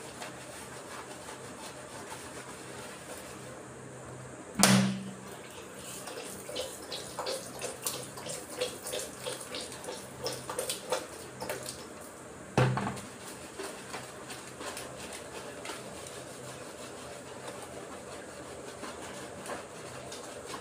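Shampoo lather being rubbed by hand into a wet Shetland sheepdog's coat in a small tiled bathroom: soft wet rubbing with many rapid little ticks, broken twice by a short loud burst, about four and a half and twelve and a half seconds in.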